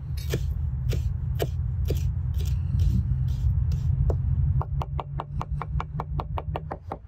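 Broad-bladed knife chopping fresh dill on a wooden cutting board: sharp chops about two a second at first, then a quicker run of about five a second from about halfway through, over a steady low rumble.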